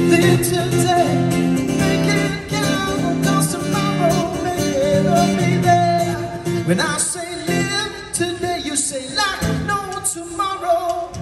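Live band music over a concert PA: a singer over acoustic guitar, electric bass and drums.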